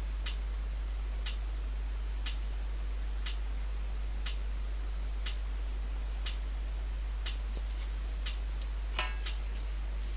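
Short bursts of maximum-length-sequence (MLS) test noise from a loudspeaker, each 10 milliseconds long and repeating once a second, heard as sharp evenly spaced ticks. A steady low hum runs underneath, and an extra louder click comes about nine seconds in.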